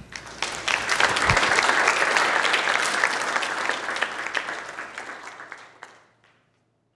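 Lecture audience applauding: the clapping swells quickly, holds, then dies away near the end. There is a single low thump about a second in.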